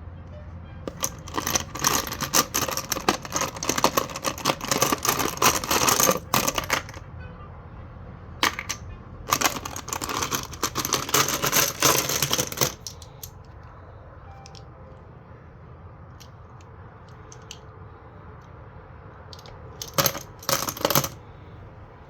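Loose metal cartridges clinking and rattling against each other, as when poured out or stirred by hand: two long spells of dense jingling and a short double rattle near the end.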